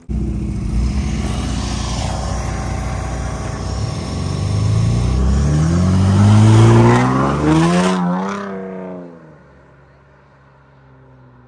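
Car engine accelerating hard, its pitch climbing for several seconds and loudest just past the middle. The pitch then drops and the sound fades away as the car pulls off.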